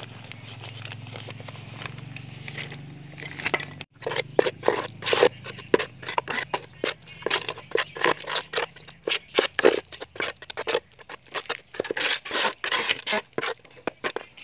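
A steel trowel scraping and slapping through thick white cement mix in a plastic bucket, in quick repeated strokes about two to three a second. Before that, for the first four seconds, dry powder pours from a bag over a low steady hum.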